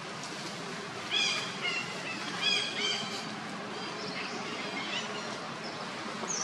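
A run of short, high-pitched chirping animal calls about one to three seconds in, a few fainter ones later, over a steady outdoor background hiss.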